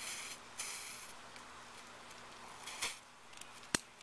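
Firecracker fuses fizzing in short bursts as they are lit with a long utility lighter, followed near the end by two sharp clicks about half a second apart.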